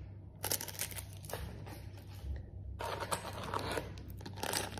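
Crinkling and rustling of packaging being handled, in irregular spells with a quieter lull in the middle.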